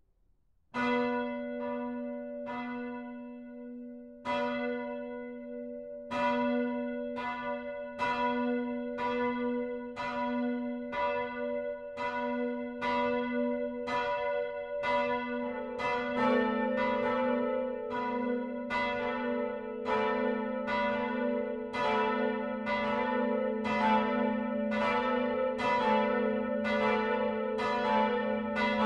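Swinging church bells starting to ring. The first strokes come about a second in, slow and uneven, then grow steadier and closer together, and the peal thickens from about halfway through.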